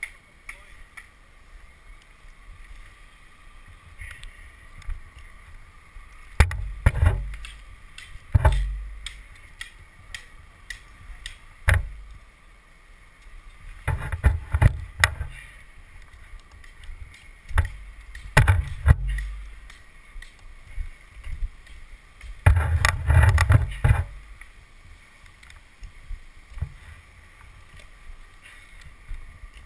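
Tree climber going up a poplar trunk on climbing spikes: irregular knocks and low thumps as the spikes kick into the bark and the gear strikes the trunk, some single and some in short clusters.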